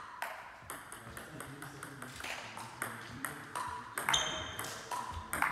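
Table tennis rally: the ball clicking off the bats and bouncing on the table in a quick, steady back-and-forth. A short high squeak comes a little after four seconds in.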